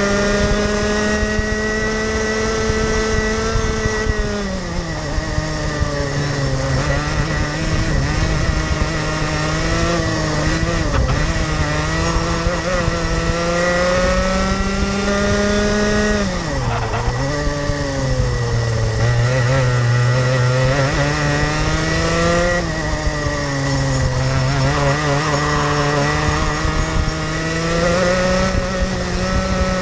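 Rotax Max Junior 125cc two-stroke kart engine at race pace, heard from on board the kart. Its pitch drops several times as the kart slows for corners, most deeply a little past halfway, and climbs again as it accelerates out.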